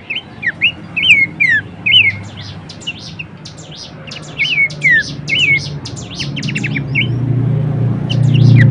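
Pelanduk semak (Horsfield's babbler) calling: repeated short whistled notes that arch up and down or slide down, with quick high chips between them. A low hum grows louder over the last few seconds.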